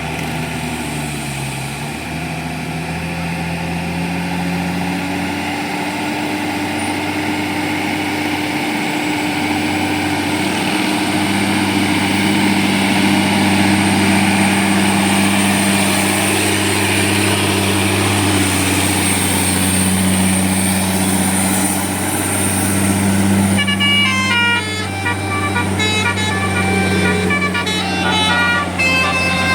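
A heavy bus engine runs steadily. Near the end, a telolet 'basuri' musical air horn plays a fast melody of short stepped notes over it.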